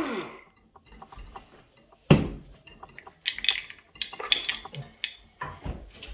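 Steel strut top-mount parts clinking and knocking as the top nut comes off a compressed MacPherson strut: scattered metallic clicks, a sharp knock about two seconds in, then a run of ringing clinks.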